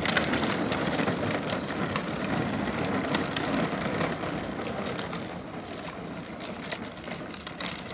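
Hard plastic wheels of a child's pedal tractor rolling over wet asphalt and through shallow puddles. It is a steady rolling noise with frequent small clicks and rattles, fading a little as the tractor moves off.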